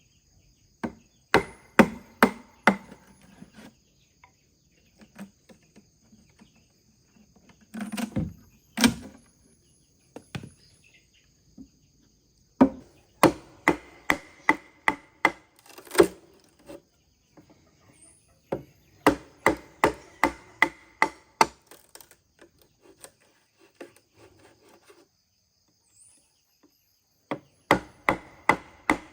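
Repeated sharp strikes of a hand tool on bamboo, coming in runs of several quick blows about two to three a second, with pauses between the runs.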